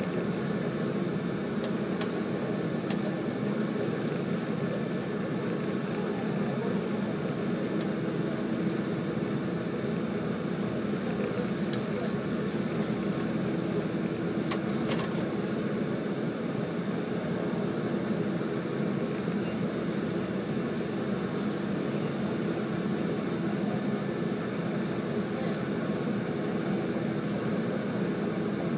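Steady running noise of a JR 185 series electric train at speed, heard inside the passenger car: an even rumble of wheels on rail with a low hum, and a few faint sharp clicks.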